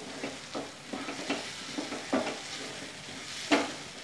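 Wooden spatula stirring and scraping scrambled egg with onion and tomato around a non-stick frying pan as it fries, with a faint sizzle underneath. The strokes come about two a second and are uneven; the loudest scrape falls about three and a half seconds in.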